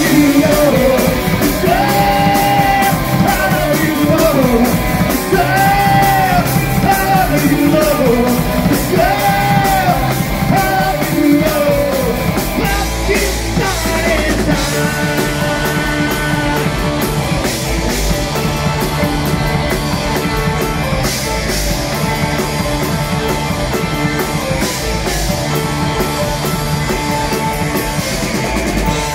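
Live punk rock band playing loudly: distorted electric guitars, bass guitar and a drum kit. Over roughly the first twelve seconds a singer repeats held phrases, then the band plays on without vocals.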